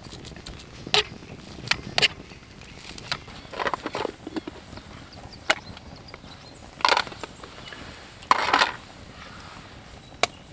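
A knife chopping minced meat on a plastic cutting board: irregular sharp taps and knocks, with two longer crunching sounds in the second half.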